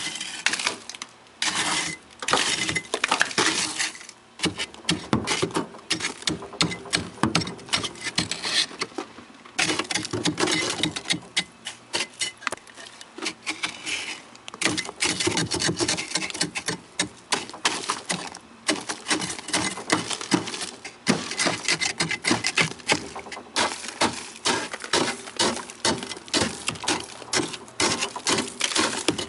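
A hand chisel chipping and scraping at thick ice and frost built up inside a freezer: quick runs of sharp strikes, many a second, broken by brief pauses.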